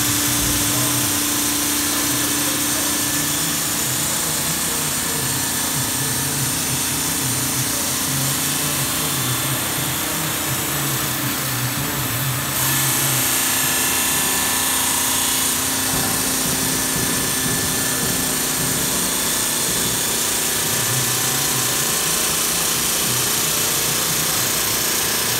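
Sasso K600 CNC bridge saw's water-cooled diamond blade running and cutting through Welsh slate: a steady, continuous cutting noise with the saw motor's hum beneath it. The sound shifts suddenly about halfway through.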